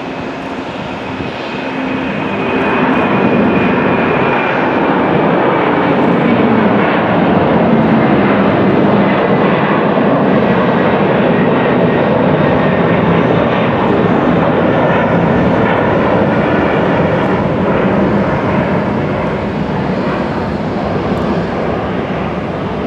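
Boeing 747-400 freighter's four turbofan engines at takeoff thrust as it lifts off and climbs out: a loud, steady jet rumble that swells about two seconds in, with a faint whine slowly falling in pitch.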